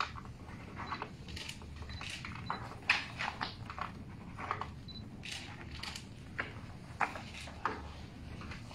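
Sheets of paper rustling and being handled on a table while documents are signed, with scattered sharp clicks and taps; the loudest comes about three seconds in.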